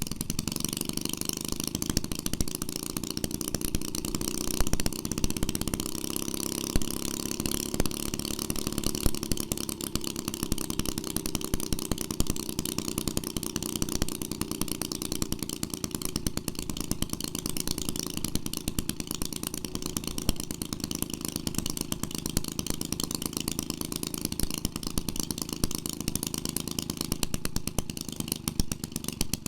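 1946 Maytag Model 72 twin-cylinder two-stroke engine running steadily on its first run after a full restoration, with a fast, even firing.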